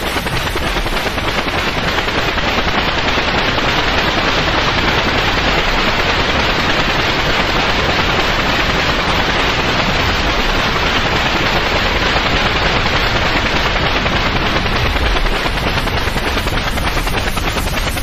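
Steady white noise played as a sleep aid: an even hiss that does not change.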